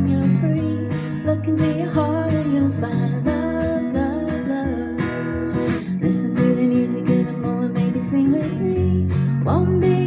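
Acoustic guitar strummed in a steady rhythm, with a woman's singing voice over it.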